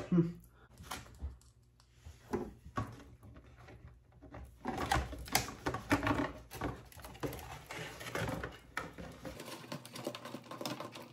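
Small parts being handled during hands-on assembly: scattered light clicks and taps, sparse at first and busier in the middle.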